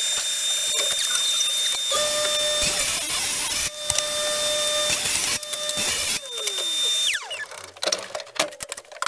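Table saw running with a steady high motor whine, cutting half-inch Baltic birch plywood in passes. It is switched off about seven seconds in, and the whine falls as the blade winds down.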